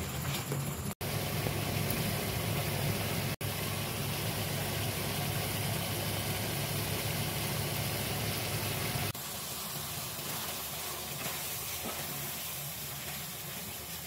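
Chicken in a creamy white karahi gravy sizzling in the pan, a steady hiss over a low hum. The sound breaks off for an instant twice early on, and the low hum drops away about nine seconds in, leaving a quieter sizzle.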